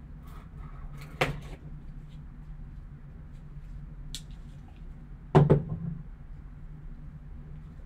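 Handling of a sealed trading-card box and a folding pocket knife: a sharp click about a second in, then a louder knock a little past five seconds as the knife is set down on the table, over a steady low hum.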